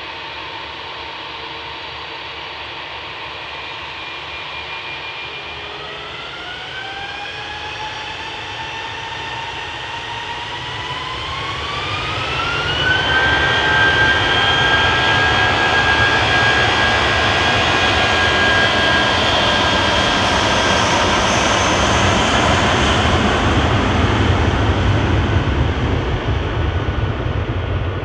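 Airbus A320's twin IAE V2500 jet engines spooling up for take-off: a whine rises in pitch from about six seconds in, the sound jumps in loudness at about thirteen seconds, and a steady high whine then holds at take-off thrust while a deep rumble builds as the aircraft rolls.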